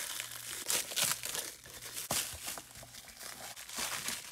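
Clear plastic wrap crinkling in irregular crackles as it is pulled off a thick aluminium wheel spacer by hand.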